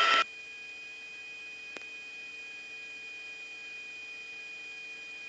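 Steady electrical hum on the radio audio line between transmissions: a few fixed tones over a light hiss, with one faint click about two seconds in.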